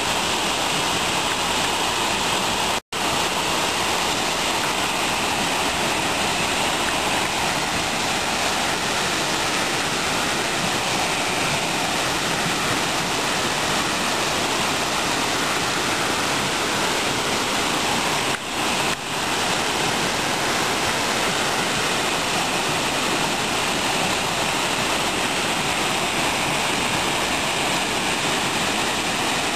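Waterfall's steady rushing roar of falling water. The sound drops out for an instant about three seconds in.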